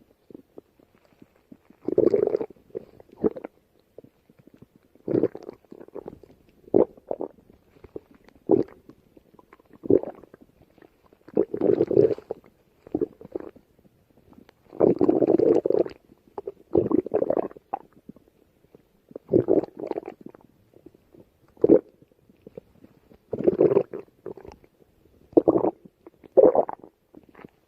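Stomach growling and gurgling in irregular bouts, some short and some drawn out for a second or more, with the longest about halfway through.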